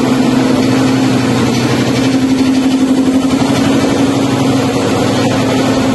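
A motor running steadily: a constant low hum with an even hiss over it.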